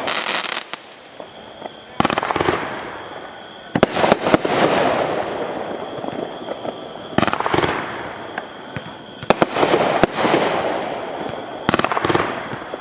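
Legend Fireworks LC3504 "Bad Ass" aerial repeater firing shot after shot. There are about eight sharp bursts, some in quick pairs, each followed by a fading hiss as the glittering stars fall.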